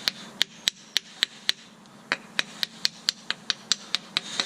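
Rapid, regular sharp clicks or taps, about four a second with a short pause part way through, from hand-tool work on an electric trolling motor's armature and commutator during a rebuild. A faint steady hum runs underneath.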